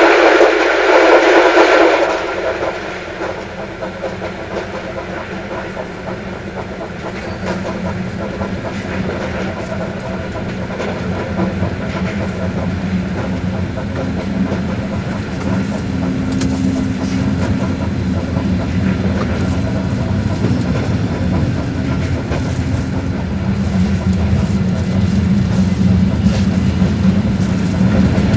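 Electric commuter train (elektrichka) running, heard from inside the carriage: a steady low rumble with faint clicks from the rails, slowly growing louder. It opens with a louder, brighter noise that cuts off suddenly about two seconds in.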